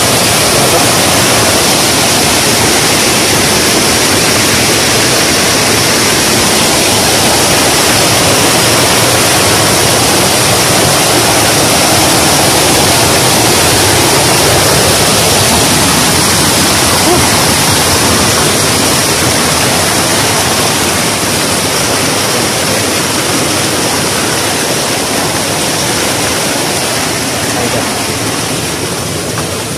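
Small waterfall pouring over rocks close to the microphone: a loud, steady rush of water that eases off a little toward the end.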